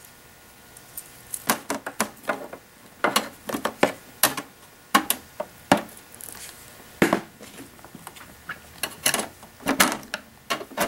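Irregular sharp metallic clicks and taps of a metal tool against the perforated stainless cup-warming plate of a Jura espresso machine as the plate is worked loose from its wedged stoppers.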